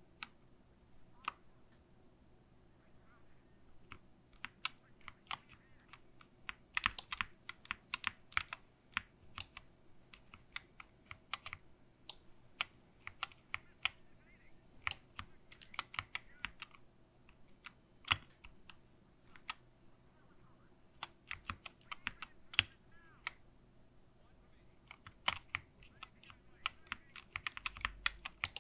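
Typing on a SteelSeries Apex Pro Mini Wireless keyboard with OmniPoint magnetic switches: quick runs of keystroke clicks with short pauses between them.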